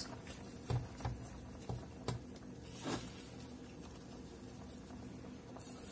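Wooden spoon stirring fresh moringa leaves into a steel saucepan: a few soft knocks and rustles of the spoon against the pot in the first three seconds, then quieter stirring.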